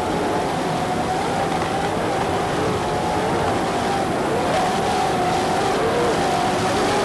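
Offshore powerboat racer's engines running at full speed, a steady drone whose pitch wavers and dips briefly as the hull leaps and lands, under a constant rush of wind and spray noise.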